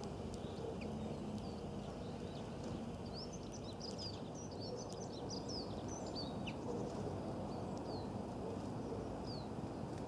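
Small songbirds chirping: a quick flurry of short, falling chirps about three to six seconds in, then a few single chirps, over a steady low outdoor rumble.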